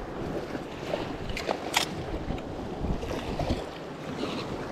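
Sea washing against shore rocks with wind buffeting the microphone, and a couple of sharp clicks about one and a half seconds in.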